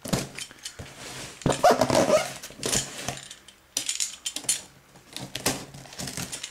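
Utility knife blade scraping and cutting through the packing tape on a cardboard box, with irregular clicks and scratches. There is a louder rasping stretch about one and a half seconds in.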